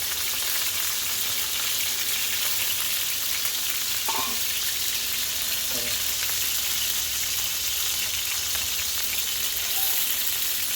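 Marinated chicken wings shallow-frying in hot oil: a steady sizzle with oil spitting, the wings browned and nearly done.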